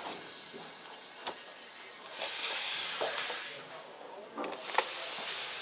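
Steam hissing from the steam locomotive Kilmersdon, a Peckett 0-4-0 saddle tank, in two long bursts about a second apart, with a few sharp clanks from the moving train.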